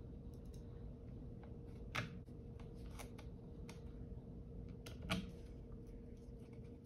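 A few sharp clicks and taps of a screwdriver and fingers on a laptop's bottom cover as it is fitted and screwed back on, the two loudest about 2 and 5 seconds in, over a faint steady hum.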